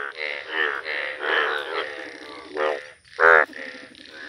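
Indian bullfrog croaking, a breeding male in yellow colouring calling with its blue vocal sacs while clasping a female. The calls come one after another, the loudest a sharp croak about three seconds in.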